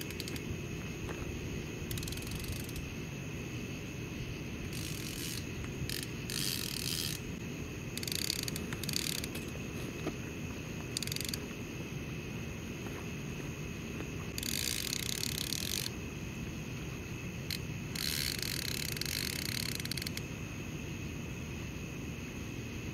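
Fishing reel's bait clicker ratcheting in short spurts a few seconds apart, the longest lasting about two seconds, as small catfish tug line off the reel without taking hold of the bait. A steady low rumble runs underneath.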